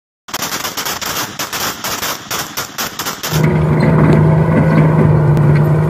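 Rapid, uneven automatic rifle and machine-gun fire from several guns, about five shots a second. About three seconds in it gives way to a louder steady engine drone from an armoured personnel carrier.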